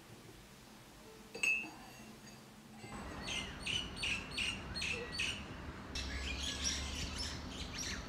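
A spoon clinks once against a mug with a brief ring, then small birds chirp in a quick, even series of about three calls a second, turning into busier, more varied song near the end.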